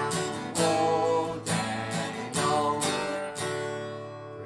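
Acoustic guitar strummed in a steady rhythm, about two strums a second, growing quieter and dying away near the end as the song closes.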